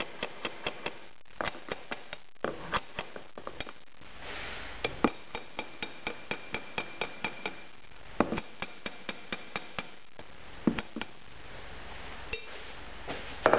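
Rapid light metallic taps, about five a second, of a metal bar striking a spike driven into a wooden foundry pattern in a sand mould, rapping the pattern loose so it can be drawn. A few harder knocks come among the taps, about five seconds in, around eight seconds and near eleven seconds, and the tapping stops shortly before the end.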